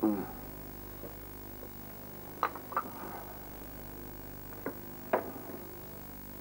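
Steady electrical hum, with a short falling tone at the very start and four sharp knocks, in two close pairs about two and a half seconds apart.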